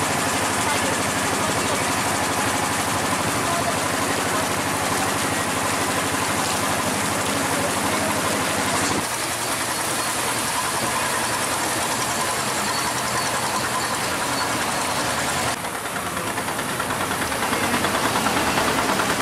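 Tour boat's engine running steadily at cruising speed, a low even chugging under the hiss of water rushing past the hull. The sound shifts abruptly about nine seconds in and again about fifteen seconds in.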